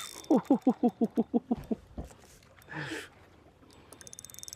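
A quick run of about ten short, pitched calls, each falling in pitch, in the first second and a half, then a single weaker call. Near the end, a fishing reel's rapid, even clicking starts as line is reeled in on a hooked white bass.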